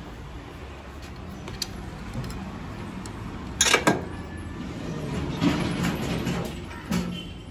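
Metal clinks and rattles of a motorcycle steering stem being freed: the upper lock nut spun off by hand and the lower triple clamp sliding down out of the head tube. The loudest part is a brief sharp clatter about three and a half seconds in, followed by scraping and knocking.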